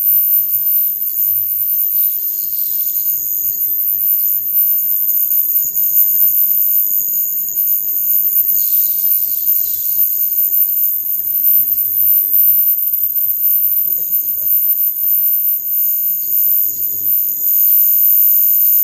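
Ultrasonic transducer running while it breaks up aluminium foil: a steady, loud, very high-pitched whine with a second, lower whine, over a low electrical hum. A hiss swells briefly twice, about two and nine seconds in.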